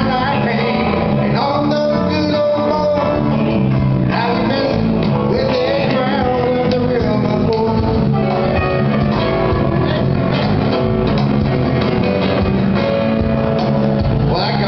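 Live band playing through a PA: strummed acoustic guitar, electric bass and a hand-played cajon keeping the beat, with a man singing over them.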